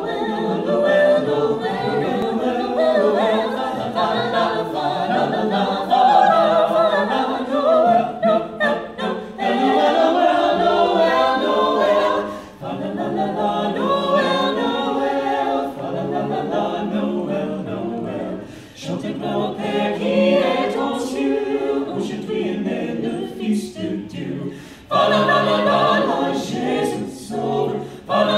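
Mixed men's and women's a cappella choir singing in close harmony, with no instruments, pausing briefly between phrases a few times.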